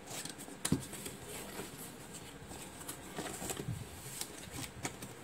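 Cardboard parcel being handled and opened by hand: scattered rustles and taps, with one sharp knock about 0.7 s in.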